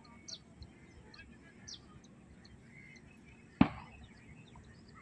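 Small birds chirping, short high calls that fall in pitch, repeated every second or so. One sharp knock about three and a half seconds in is the loudest sound.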